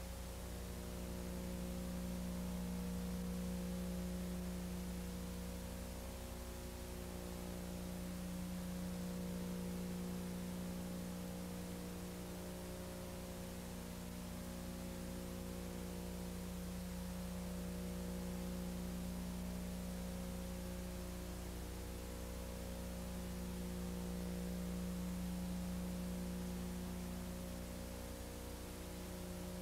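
Steady electrical hum with hiss, slowly swelling and fading a little in level.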